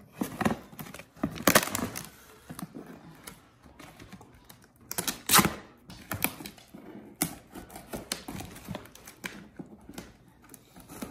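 Scissors cutting through the packing tape on a cardboard box: irregular snips and scratchy scraping along the seam, with a few louder strokes.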